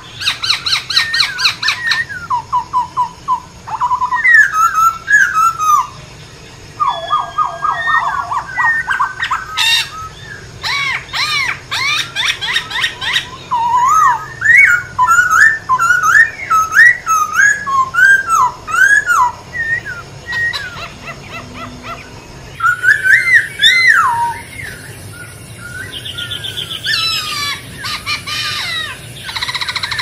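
Black-throated laughingthrush singing: a loud, almost unbroken run of varied whistled phrases, with rising and falling notes and quick trilled series, broken by brief pauses.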